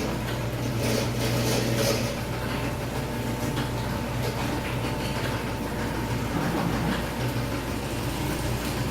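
Overhead garage door opener running steadily, its motor humming as it drives the door along the track with a continuous rumble.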